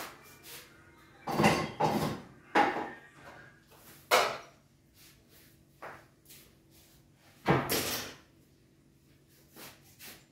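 Kitchen clatter from things being picked up and set down on a stove-top counter: a series of irregular knocks and clanks, the loudest about a second and a half in, at about four seconds and near eight seconds.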